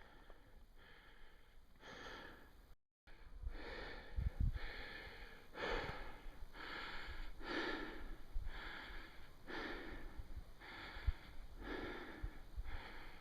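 A hiker breathing hard and rhythmically while climbing, about one breath a second, labouring in the thin air well above his sea-level acclimatization. The sound cuts out for a moment about three seconds in.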